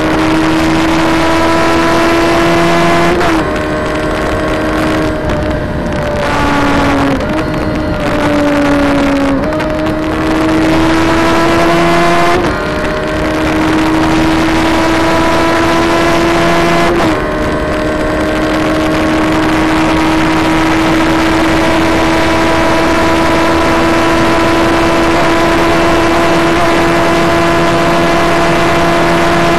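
1997 Honda CBR1100XX Super Blackbird's inline-four, fitted with an Akrapovic racing exhaust, accelerating hard at high speed. Its note climbs and breaks off with each gear change, several times in the first seventeen seconds, then rises slowly in top gear, under a steady rush of wind.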